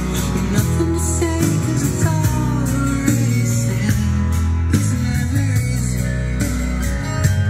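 Guitar-led rock music playing from a pair of hi-fi loudspeakers driven by an NAD 2200 stereo power amplifier, as a listening demo of the amplifier.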